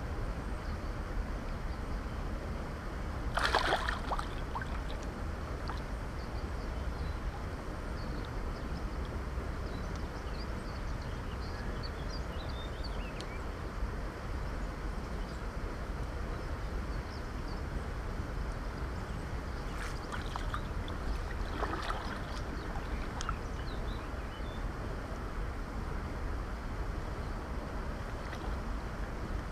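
Shallow river water flowing and sloshing over a steady low rumble, with a sharp splash about three and a half seconds in and a few smaller splashes around twenty to twenty-two seconds in, as a large asp is held upright in the water by hand.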